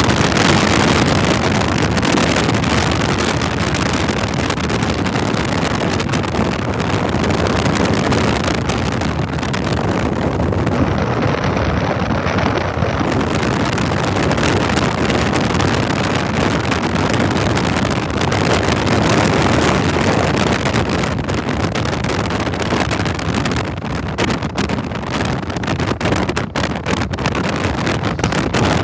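Freight train passing close by: the steady rumble and rattle of loaded flatcars' wheels on the rails, with a run of sharper knocks near the end as the diesel locomotives draw level.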